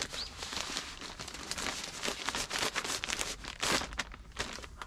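Graphene heated blanket being folded and stuffed into its fabric storage pouch: an uneven run of fabric crinkling and rustling.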